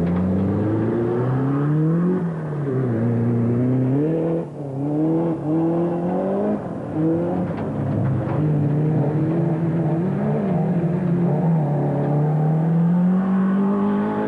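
Off-road race car engine revving, its pitch climbing and falling again and again as the driver accelerates, shifts and lifts off, with a short drop in loudness about four and a half seconds in.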